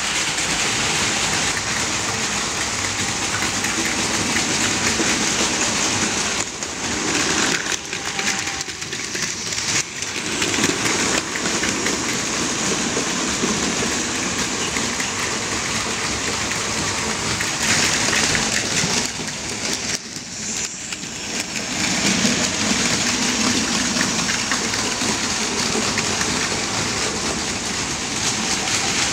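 Several battery-powered Plarail Advance toy shinkansen trains running on plastic track: a steady, dense whirring and rattling of small motors and wheels. The mix shifts abruptly a few times.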